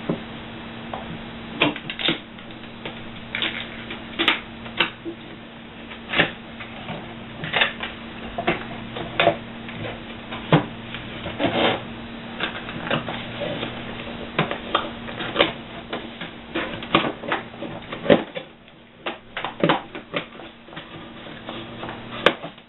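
Irregular clicks, taps and rustles of packaging being handled during an unboxing, over a steady low hum.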